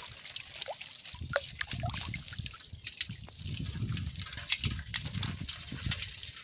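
Water dripping and sloshing off a bamboo fish trap lifted from shallow water and tipped over a metal pot, with many small clicks and splashes as the catch of small fish slides into the pot.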